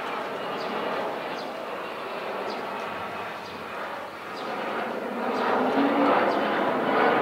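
Steady outdoor background noise with faint, indistinct voices in it, growing a little louder over the last couple of seconds.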